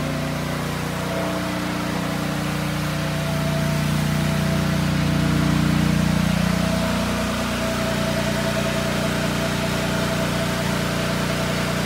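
Gas engines on a pressure-washing trailer running steadily at a constant speed, a steady mechanical hum that swells a little for a few seconds midway.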